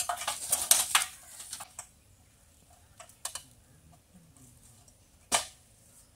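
Metal ladder being set against a tree trunk and climbed: a quick clatter of clicks and rattles for the first couple of seconds, then a few light knocks and one sharp knock a little after five seconds.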